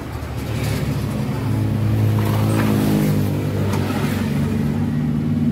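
Yamaha NMAX scooter's single-cylinder four-stroke engine running steadily after a new camshaft set with its bearing has been fitted in place of the collapsed camshaft bearing; it runs normally again.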